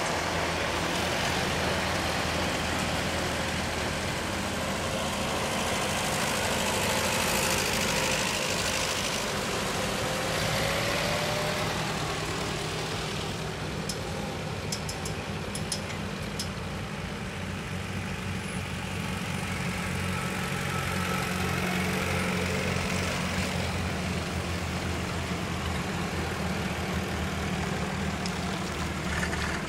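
Old farm tractor engines running steadily at low road speed as the tractors drive past one after another. There is a continuous low drone, and a faint whine that rises slightly partway through.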